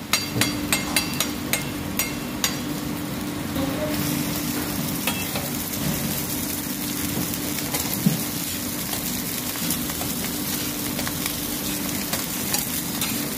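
Eggs frying on a flat-top griddle: a steady sizzle. A quick run of sharp clicks comes in the first two seconds or so, and a single knock about eight seconds in.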